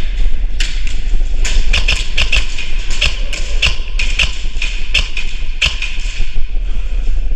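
A rapid, irregular series of sharp clicks and snaps, roughly two to three a second, thinning out near the end, over a steady low rumble.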